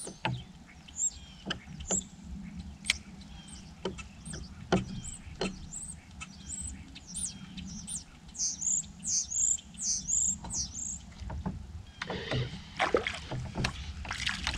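Scattered sharp clicks and knocks from fishing gear on a boat deck over a steady low hum. Midway a bird sings a quick run of high chirps, and near the end a small hooked crappie splashes at the surface as it is reeled in.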